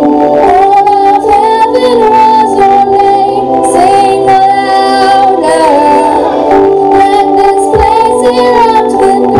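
A young girl singing a gospel song into a microphone, amplified through a PA system, over an instrumental backing. Her voice carries a held, bending melody line.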